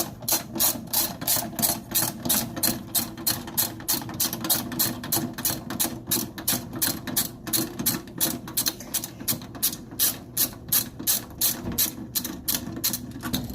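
Socket ratchet wrench clicking steadily, about three clicks a second, as it backs out a booster-heater mounting bolt.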